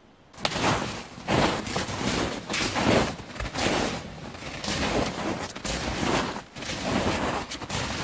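Close crunching and rustling of footsteps through snow and brush, starting abruptly about half a second in and going on in uneven surges.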